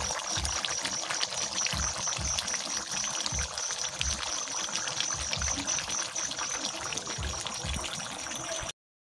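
Meat stew in sauce bubbling and sizzling in a pan on the stove: a steady hiss with many small crackles and pops. It stops suddenly near the end.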